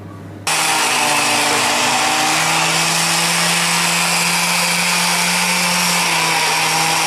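Electric meat grinder switched on about half a second in, then running steadily with an even motor hum as it grinds chunks of raw meat through a medium-hole plate.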